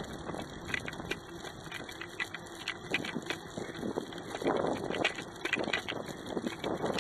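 Bicycle in motion with a bike-mounted action camera: irregular clicking and rattling knocks over a steady hiss of riding noise.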